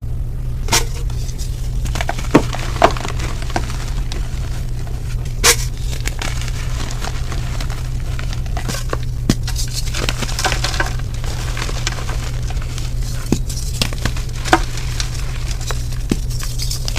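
Soft reformed gym chalk being crushed, giving scattered crisp crunches and snaps, a few sharper ones standing out, over a steady low hum.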